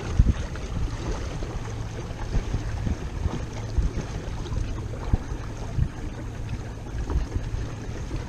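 Water rushing and splashing along the hull of a WindRider 16 trimaran under sail, with wind buffeting the microphone in uneven low thumps.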